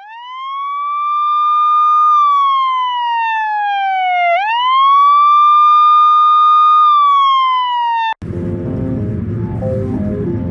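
Wailing siren: the pitch climbs, holds, then slides down, and the cycle repeats once before it cuts off suddenly about eight seconds in. Electronic music with a steady pulse takes over at that point.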